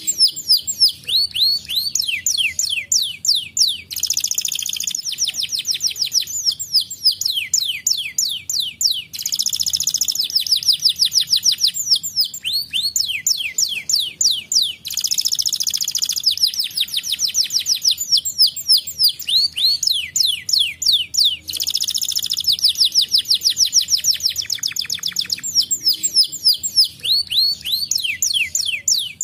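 Domestic canary singing: fast trills of repeated down-sweeping notes. Every few seconds the song changes to a denser, buzzy roll.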